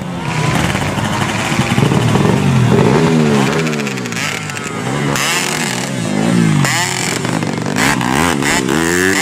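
Underbone grasstrack motorcycle engine revved again and again, its pitch rising and falling in quick blips every second or so.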